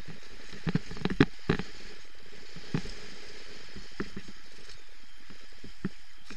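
Downhill mountain bike riding fast over a rocky forest trail, heard from a helmet-mounted camera: a steady rushing noise with sharp knocks and rattles as the bike strikes rocks, a quick cluster of them about a second in and single knocks every second or so after.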